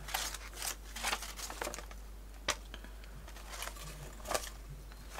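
Faint rustling of magazine pages being leafed through, with a few small clicks, the sharpest about two and a half seconds in.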